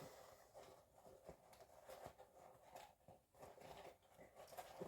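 Near silence, with a few faint, scattered soft clicks and rustles of small objects being handled.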